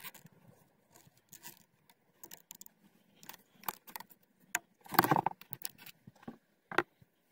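Clicks and rattles of camera-mount parts being handled and fitted onto an Opteka X-Grip handle, with a louder clatter about five seconds in and a sharp click near the end.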